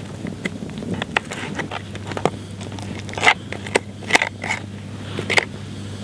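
A knife cutting and scraping boiled chicken meat off the bone on a plastic plate: irregular clicks, snaps and scrapes, a few louder ones in the second half, over a low steady hum.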